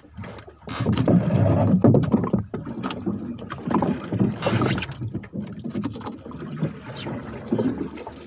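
A fisherman moving about and handling gear on a small wooden boat: irregular knocks, rustles and scrapes, loudest between about one and two seconds in.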